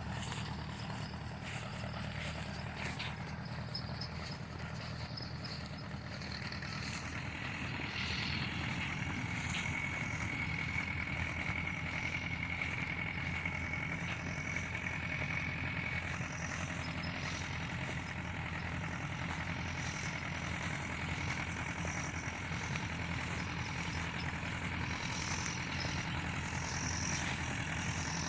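Farm tractor engine running steadily, getting a little louder about eight seconds in, with a thin high whine heard for several seconds after that.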